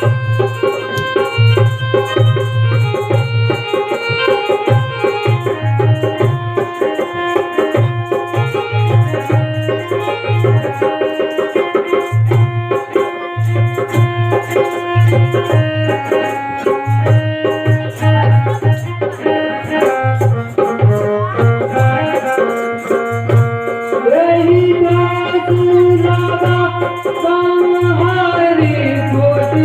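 Instrumental music: a drum keeps a steady beat, with short breaks, under a melody instrument playing many held notes. About two-thirds of the way through, a lower, wavering held melody line comes in.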